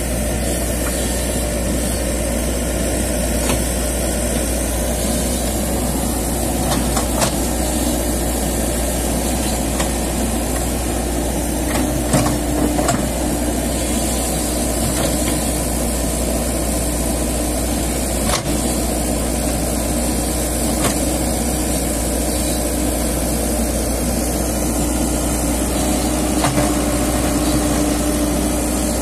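Komatsu PC-78US mini excavator's diesel engine running steadily, with a few short knocks scattered through.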